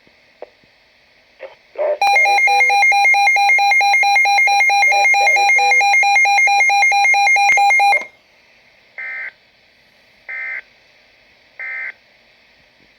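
Weather radio emergency alert tone: a loud, steady electronic alarm tone that starts about two seconds in and holds for about six seconds, then stops. It is followed by three short bursts of data tones a little over a second apart, announcing a severe thunderstorm warning.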